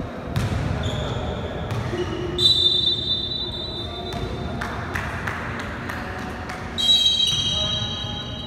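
A basketball game on a hardwood indoor court, echoing in the hall: the ball bounces as it is dribbled and players' voices call out. Sharp high sneaker squeaks come a little over two seconds in and again about seven seconds in.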